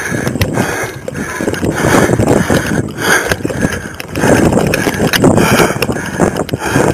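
Police body-worn camera jostling and rubbing against the officer's uniform and gear as he moves quickly on foot, with clattering knocks at each step.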